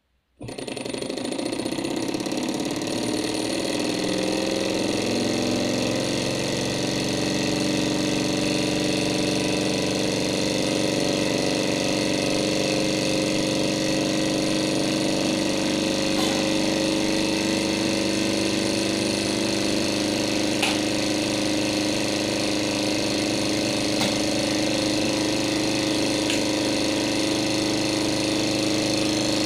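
Small model Stirling engine, heated by an alcohol lamp, started with a flick of its flywheel. It speeds up over the first few seconds, then runs steadily with a fast mechanical whirr.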